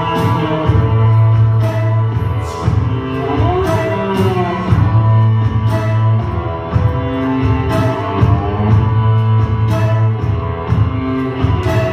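Music: sustained pitched notes over a deep, pulsing bass, with sharp percussive hits here and there.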